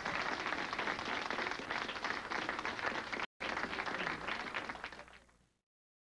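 Audience applauding, with a brief dropout in the sound a little over three seconds in, then fading out near the end.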